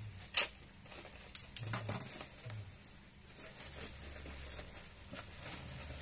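Clear plastic packaging bag crinkling and rustling as it is handled and pulled open, with a sharp tap about half a second in and a few smaller clicks soon after.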